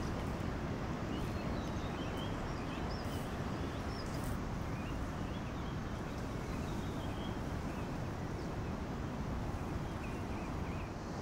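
Steady rush of a flowing river, with faint small birds chirping now and then.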